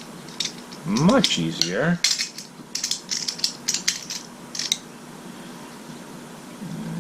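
Small metal parts of a Steccone squeegee handle being worked loose and unscrewed, giving quick irregular metallic clicks and ticks, thickest between about two and five seconds in.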